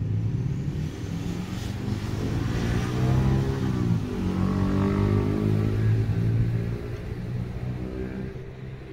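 A motor engine running close by, its pitch dipping and rising again about four seconds in, then fading near the end.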